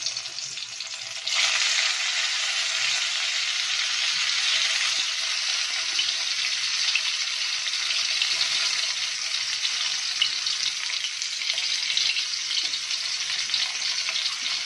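Stuffed bitter gourds sizzling as they fry in hot oil in an aluminium kadai. The sizzle jumps louder about a second in as more gourds are laid into the oil, then holds steady.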